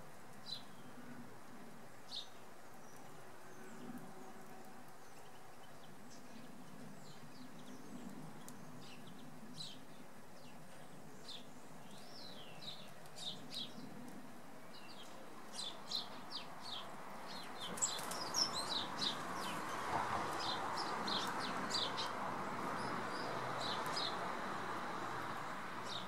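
Small songbirds giving short, high chirping calls, scattered at first and coming more thickly in the second half. About two-thirds of the way in, a steady rushing noise comes up underneath them.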